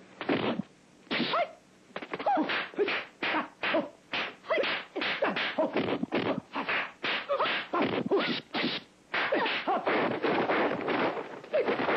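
Kung fu film fight sound effects: a rapid run of punch, block and whoosh hits, about two to three a second, with a couple of brief pauses.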